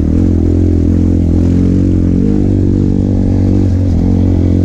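Trail motorcycle engine running at fairly steady revs, with small rises and falls in pitch.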